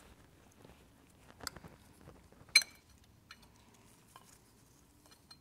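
A few light metallic clinks as a thin metal disc is slid onto the crankshaft flange of an Opel engine and settled by hand. The sharpest clink, about two and a half seconds in, rings briefly.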